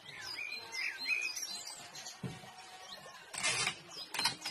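Small birds chirping in the background, then adhesive tape pulled off a tape dispenser and torn at its cutter: a longer rasping pull a little after three seconds in and a shorter one about a second later.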